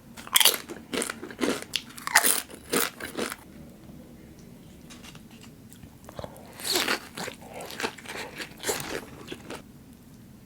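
Crisp food being bitten and chewed with loud crunches, in two spells: one over the first three seconds or so, another from about six seconds in, with quieter chewing between.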